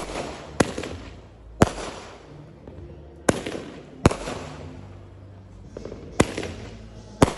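Fireworks exploding: about seven loud, sharp bangs at uneven intervals, each trailing off in an echo.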